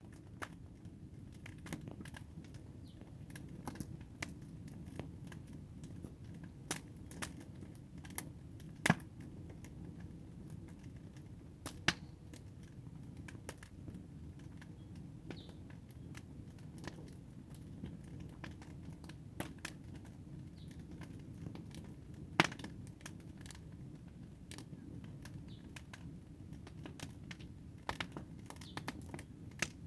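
Outdoor ambience: a low steady rumble with sharp clicks and taps scattered irregularly, three of them louder, about nine, twelve and twenty-two seconds in.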